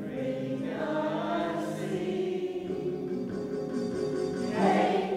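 Community choir of men's and women's voices singing a song together, holding long sustained notes.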